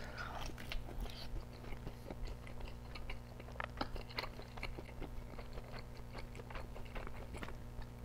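Close-miked chewing of a bite of microwaved deep-dish cheese pizza: many small, soft, wet mouth clicks. The crust has no crisp to it.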